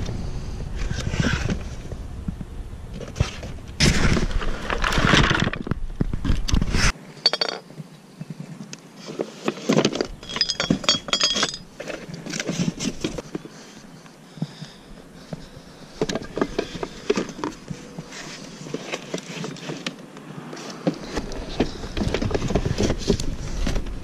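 Scrap metal, taken for aluminum, being handled and moved: irregular clanks, clinks and scraping, with a bright metallic ringing clatter about ten seconds in. A low rumble sits under the first few seconds and the end.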